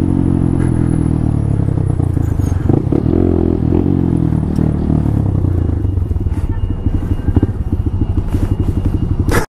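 Honda Grom's 125 cc single-cylinder four-stroke engine winding down as the bike slows, its note sinking, then settling to a pulsing idle with the separate firing beats audible. The sound cuts off suddenly near the end.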